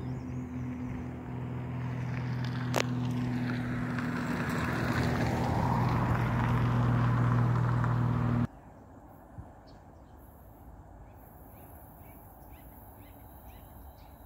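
Double-stack intermodal freight train rolling past: a steady rumble with a low hum that grows louder, and a single sharp click about three seconds in. About eight seconds in the sound drops off suddenly to a much quieter passing train with a few faint high chirps.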